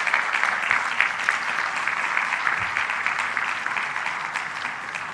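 Audience applauding, a steady mass of many hands clapping that eases off near the end.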